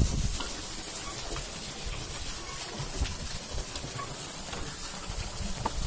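Footsteps on the wooden planks of a hanging footbridge, a few faint knocks, over a steady hiss.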